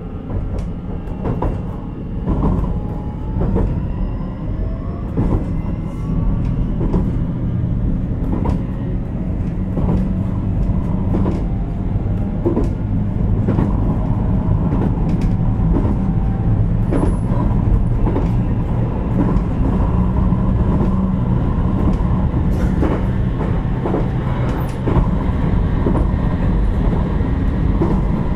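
Running noise of a JR Kyushu 817 series electric multiple unit heard on board the motor car KuMoHa 817-1009. Over the first several seconds the motor whine rises in pitch as the train gathers speed, then it settles into a steady low rumble. Sharp wheel clicks over rail joints come every second or so.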